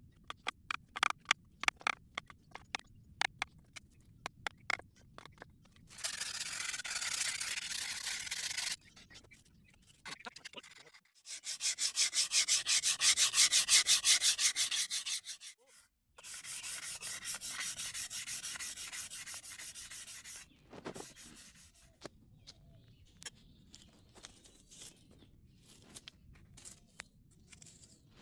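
Wood being sanded with sandpaper in quick back-and-forth strokes, in three spells of several seconds each; the middle spell is the loudest. Sharp light taps and clicks come before and after the sanding.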